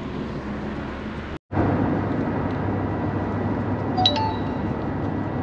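Steady road and engine noise inside a moving car's cabin, a low rumble with tyre hiss. It drops out for an instant about one and a half seconds in, and a couple of short high ticks come about four seconds in.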